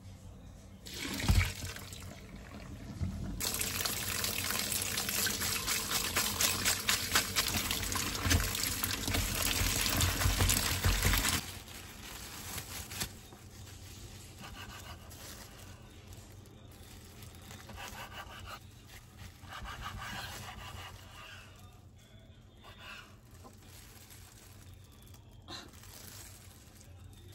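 A kitchen tap running water into a sink for about eight seconds, then shut off abruptly. Just before it there is a single knock. Quieter handling sounds follow.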